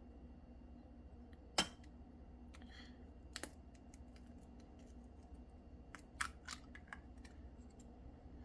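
An egg cracked against a bowl: one sharp tap about a second and a half in, then fainter clicks of the shell a couple of seconds later and a small cluster of taps near the end.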